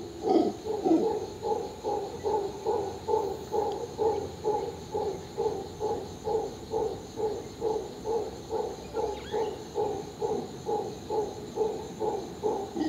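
Howler monkeys calling in an even, unbroken series of deep grunts, about two a second.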